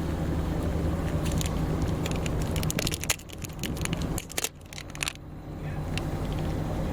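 A steady low mechanical hum of a vehicle. About three seconds in the hum drops away for a couple of seconds, during a run of sharp clicks and scrapes.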